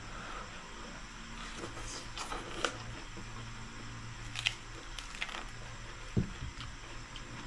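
Scattered sharp crackles of crispy deep-fried pork knuckle skin being torn apart by hand and chewed, with one dull thump about six seconds in, over a low steady hum.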